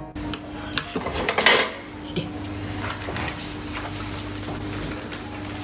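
Spoon clinking and scraping in a stainless-steel mixing bowl as a mixture is spooned and scraped into a piping bag. There is one brief, louder scrape about a second and a half in. A steady low hum runs underneath.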